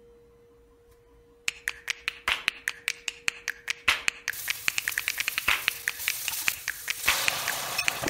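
Hot oil crackling and spitting in a frying pan, quickening into a steady sizzle from about four seconds in; before it, a faint steady hum.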